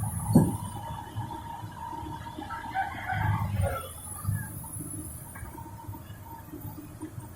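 A rooster crowing: one long call that wavers and falls away about halfway through, over a low, uneven rumble, with a sharp knock just after the start.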